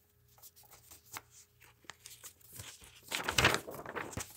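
A sheet of paper rustling and crinkling as a folded letter is unfolded and opened out, in small scattered rustles with a louder crinkle about three seconds in.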